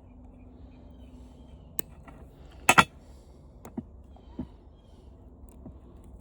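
Sharp clicks and snaps of hand tools and plastic fan parts being worked. The loudest is a sharp double snap about three seconds in, with a few lighter clicks before and after it.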